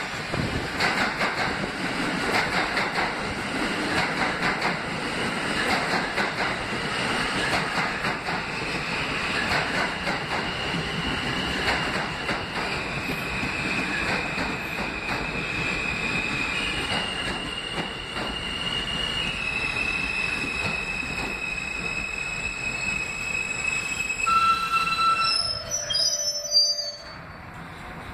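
R160 subway train pulling into a station and braking to a stop: wheel and rail rumble, then the AC propulsion's electronic whine, a set of steady high tones that step in pitch as it slows. The noise drops away about 27 seconds in as the train halts.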